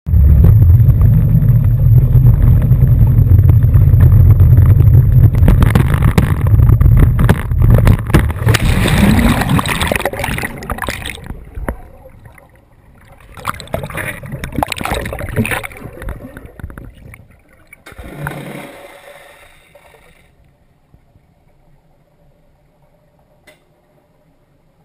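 Low rumble of a MasterCraft towboat's inboard engine running close by, then heavy splashing and bubbling as the camera plunges into the water. Near the end it falls to a faint, muffled underwater hush.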